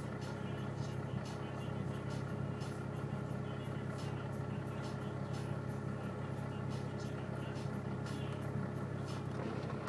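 Toyota Chaser JZX100's straight-six engine idling steadily, heard from inside the cabin.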